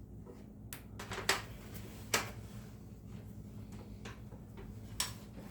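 Four irregularly spaced sharp clicks and knocks of metal hardware being handled: the opener rail's end, pin and clip being fitted to the wall bracket. A faint steady low hum runs underneath.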